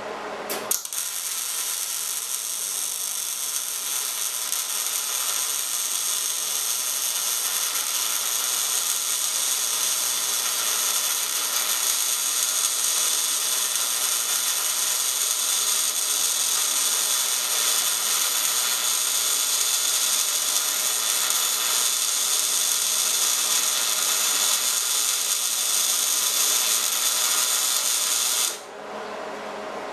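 MIG welding arc laying a fillet bead on a steel T-joint: the arc strikes with a few sharp clicks about a second in, runs as a steady loud hiss and crackle for nearly half a minute, and cuts off suddenly near the end.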